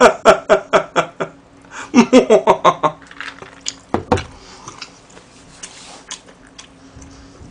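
A man's voice in short rhythmic bursts, about four a second, in the first second and again from two to three seconds in. About four seconds in, a single knock as a drinking mug is set down on the table, followed by faint light clicks.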